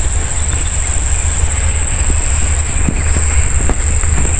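A steady, high-pitched insect chorus of crickets or cicadas, with a constant low rumble underneath.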